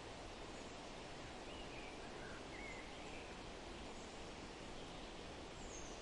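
Steady, even hiss of outdoor nature ambience, with a few faint bird chirps in the middle and another near the end.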